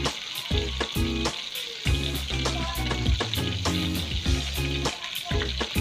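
Fish soup broth boiling hard in a metal wok, with a hissing bubble and a metal ladle stirring through it. Background music plays underneath.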